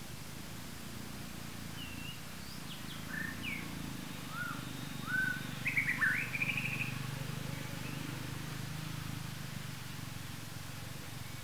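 Birds chirping: a scatter of short rising and falling chirps, busiest and loudest about five to seven seconds in with a quick run of notes, over a steady low hum.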